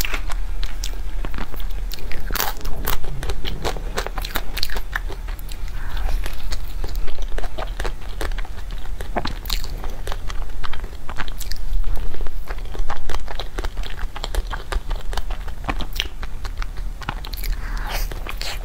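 Close-miked eating sounds of a cream-topped purple crepe cake being bitten and chewed: many short, irregular mouth clicks and smacks.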